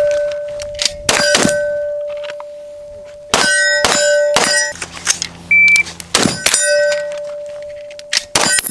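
Gunshots fired in quick groups, each group followed by steel targets clanging and ringing on as they fade.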